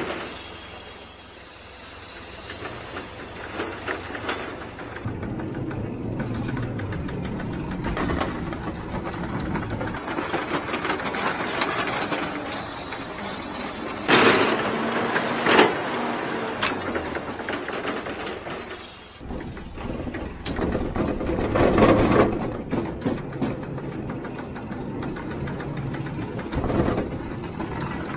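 Ladder truck's engine and hydraulic lift running steadily with a fast mechanical rattle as the boom and loading platform are worked, with a few sharp clanks about halfway through.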